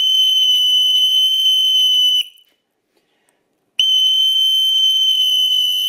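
A whistle blown in two long, steady, high notes with a pause of about a second and a half between them. Its tone drives the sand-covered plastic membrane stretched over the bucket into a standing-wave pattern.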